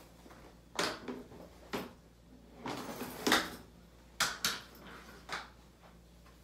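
Scattered knocks, rustles and shuffles of a person moving about a small room and handling things, about half a dozen separate noises, the loudest a little past the middle.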